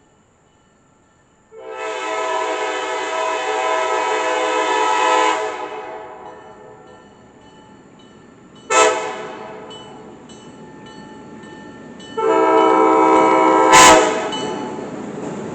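Diesel locomotive air horn on an ALCO C420 sounding three blasts as the train approaches: a long one of about four seconds, a short one, then another long one ending with a sharp click. After the last blast the train's rumble builds as it draws near.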